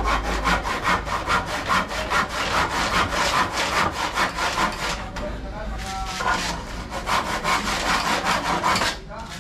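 Hand saw cutting through a wooden board in quick back-and-forth strokes, about four or five a second. It stops briefly about halfway through, then carries on.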